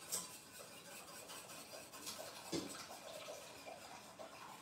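A spoon scraping and tapping around a glass bowl while a thick tarhana soup mixture is poured and dripped into a pot of water, with one sharper clink about two and a half seconds in.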